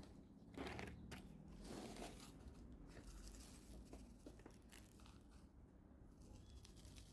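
Faint rustling and crunching of hands working potting soil and succulents while repotting, with a couple of slightly louder scrapes about a second in and again about two seconds in.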